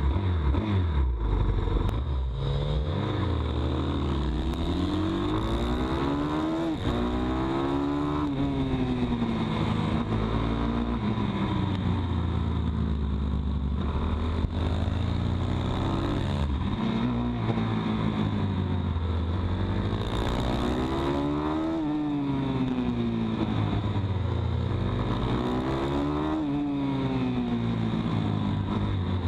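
Pit bike's small single-cylinder engine, heard up close, revving up and dropping back over and over as it accelerates out of and slows into tight corners, a rise and fall about every two to three seconds.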